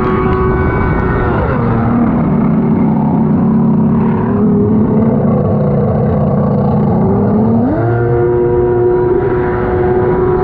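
Stand-up jet ski engine running at speed, easing off about a second and a half in to a lower, steady pitch, then climbing back to a higher steady pitch near the end as the throttle comes on again.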